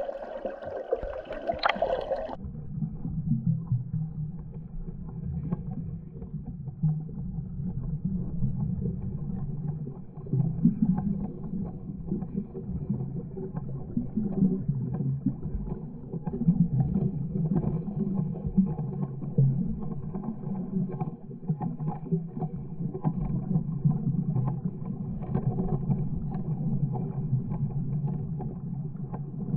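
Underwater ambience heard through a waterproof camera housing: a muffled, low rumble of moving water that swells and fades, with a faint steady hum underneath. A brighter, hissier sound cuts off abruptly about two seconds in.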